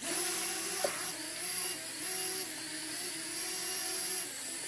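Holy Stone HS340 mini drone's four small brushed motors and propellers whining in flight, the pitch stepping up and down as the throttle changes while it performs a flip.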